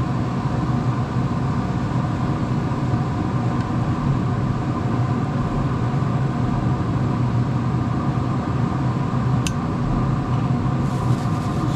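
Pellet grill's fan running with a steady mechanical hum. A single sharp click comes about nine and a half seconds in.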